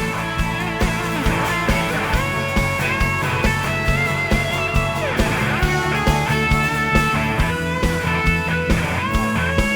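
Lead guitar solo over a live rock band: held and bent guitar notes above a steady drum beat and bass.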